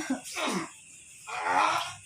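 A person with a years-long cough coughs once at the start, then makes strained voiced sounds that fall in pitch. A longer voiced sound comes about a second and a half in.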